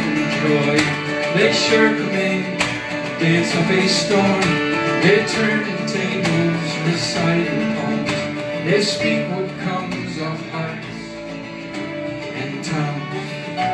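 Acoustic string band playing live, with acoustic guitar, mandolin, fiddle and upright bass.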